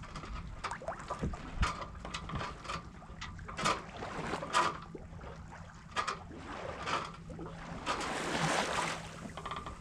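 Water lapping and slapping against a sailboat's hull in irregular small splashes, with a longer wash of water about eight seconds in, over a faint steady low hum.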